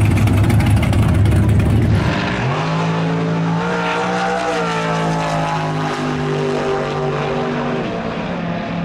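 A muscle car's engine rumbling low and rough for about two seconds. Then, after a cut, another muscle car's engine is heard running on the drag strip as a steady, high drone that bends in pitch around the middle and eases off slightly near the end.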